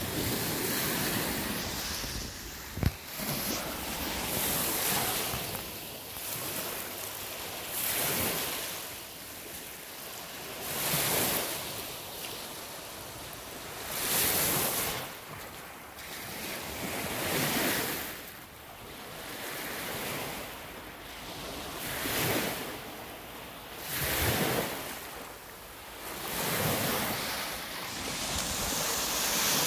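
Small waves breaking and washing up a sandy shore, the rush of water swelling and falling about every three seconds, with wind buffeting the microphone. There is a single sharp knock about three seconds in.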